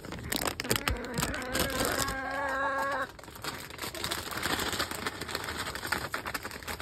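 Brown hens calling in their pen, one drawn-out call held for about two seconds starting a second in, amid scratching and pecking. Then table scraps scatter and rustle onto the wood chips.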